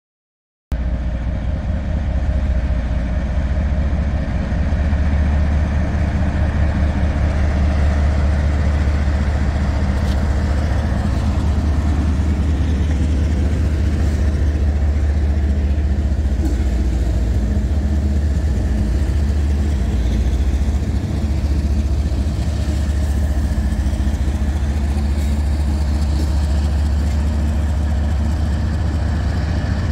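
Diesel locomotive engine running steadily, a loud, even low rumble that starts abruptly less than a second in.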